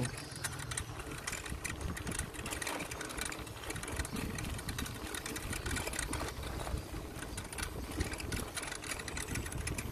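Folding bicycle rattling and clicking rapidly as it rolls over a rough concrete path.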